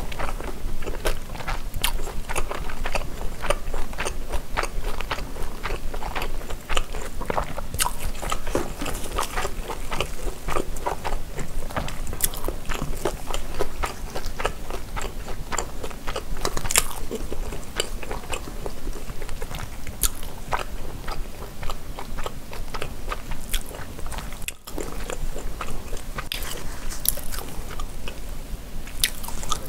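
Close-miked chewing and mouth sounds of a person eating tteok-galbi (grilled minced-beef patty) and cabbage kimchi. A steady run of wet smacks and small snaps, with a brief pause about three quarters of the way through.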